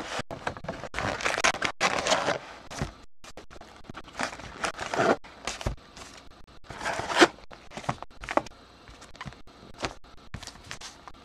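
Sealed trading-card packs being pulled out of an opened cardboard hobby box and stacked on a table: an uneven run of rustling, sliding and scraping with light taps, loudest in a few stronger bursts.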